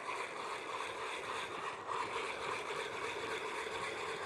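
Spinning reel being wound to retrieve a lure, a steady whirring over wind and lapping water.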